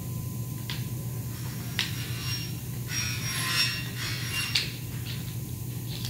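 Aluminum profiles being handled in a fabrication shop, over a steady low machinery hum: a couple of light knocks, then, about three seconds in, a scraping rub with a metallic ring that lasts about a second and a half.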